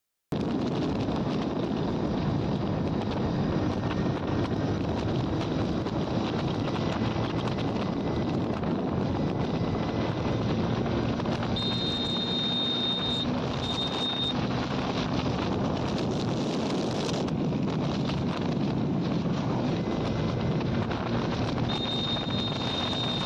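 Steady wind rush buffeting the microphone, over the running engine and tyre noise of a vehicle travelling along a highway. A few short high-pitched beeps sound about halfway through and again near the end.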